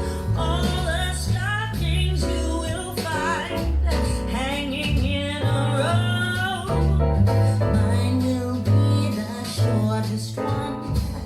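A song with a singing voice over guitar and a steady bass line, played through Axis CR5 loudspeakers.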